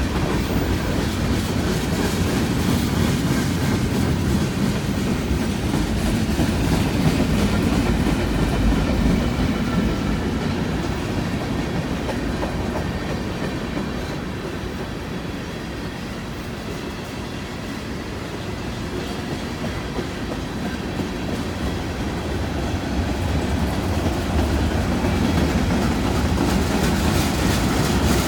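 Cars of a long freight train rolling past, wheels clacking over the rail joints with a steady rumble. It eases off a little midway and builds again near the end.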